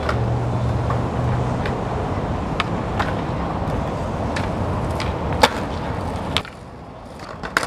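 Skateboard wheels rolling on street pavement: a steady rumble with scattered sharp clicks, and a louder clack about five and a half seconds in. The rolling stops suddenly with a knock near the end, leaving a few faint clicks.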